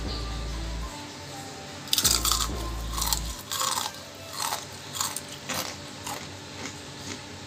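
Crunchy bites and chewing of battered, deep-fried enoki mushrooms: a run of irregular crisp crackles from about two seconds in, over soft background music.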